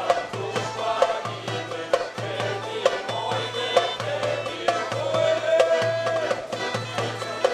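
Bulgarian folk dance music: a melody line over plucked strings and sharp drum strokes, with a steady low beat about once a second.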